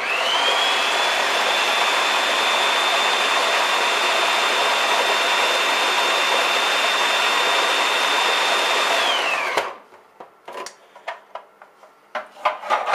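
Electric food processor motor blending cooked chicken liver pâté: it spins up quickly to a steady high whine, is switched off about nine seconds in and winds down, followed by a few knocks and clicks.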